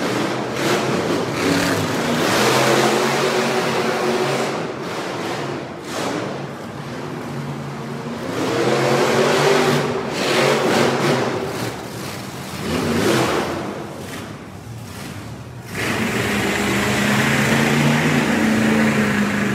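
Monster truck engines racing, revving hard with the pitch rising and falling again and again. After about three-quarters of the way through, the sound turns steadier and louder.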